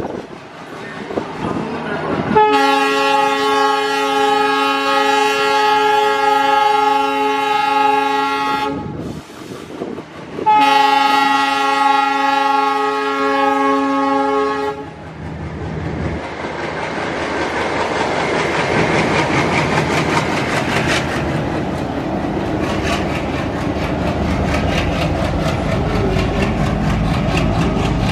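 Diesel locomotive's air horn sounding two long blasts, the first about six seconds and the second about four. After that the convoy of diesel locomotives rolls past close by, engines running, with wheels clicking over the rail joints.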